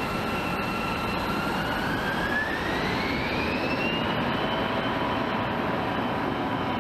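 Jet airliner engines running with a steady rumble, their whine rising in pitch about two seconds in and then holding higher, as the engines spool up to takeoff power.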